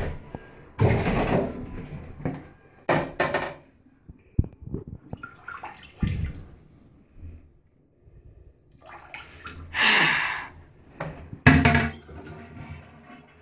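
Handling noise from a handheld phone being moved about: irregular rustling, bumps and knocks, with a longer hissing rush a little before the end.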